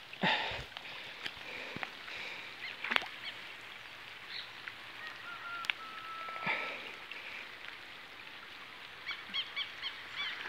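Steady rain falling on the pond and bankside vegetation, with a few short high chirps near the end.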